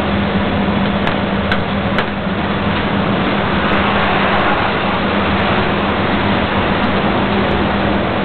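Steady mechanical hum with a constant low tone and an even rushing noise, broken by a few faint sharp clicks.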